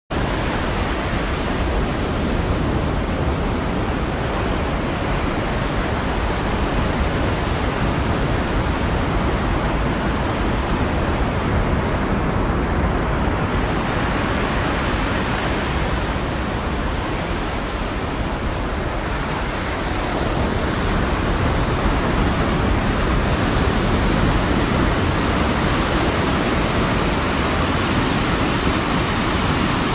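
Heavy surf from a rough sea: a steady wash of breaking waves, a little louder in the last third.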